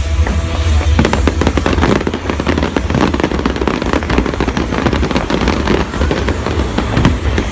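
Fireworks going off in rapid, irregular bangs and crackles, over loud show music with heavy bass.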